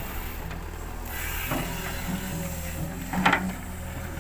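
Tracked hydraulic excavator's diesel engine running steadily as it dredges a muddy ditch, with a single short knock about three seconds in.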